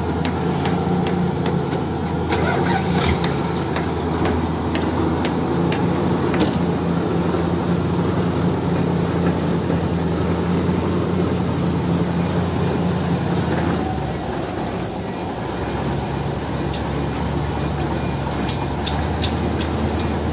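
Mitsubishi Fuso Super Great truck's diesel engine idling steadily, with a brief dip in level about two-thirds of the way through.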